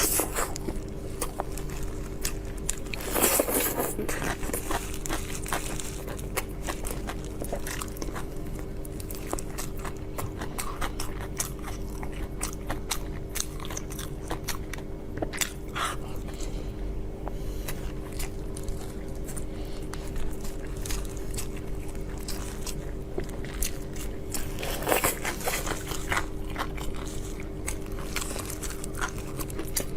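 Close-up mouth sounds of eating: biting, crunching and wet chewing of food in quick, irregular clicks, louder about three seconds in and again near the end. A steady low hum runs underneath.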